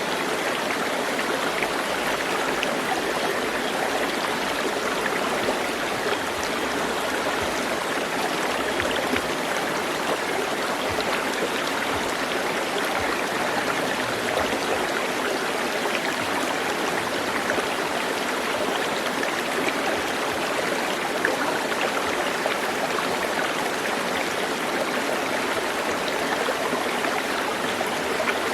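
Steady running water, an even unbroken rush like a stream.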